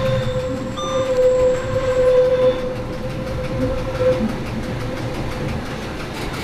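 Metre-gauge electric motor coach running on a steep downgrade, heard from the cab: a steady whine over the low rumble of the wheels on the track, with a brief squeak about a second in.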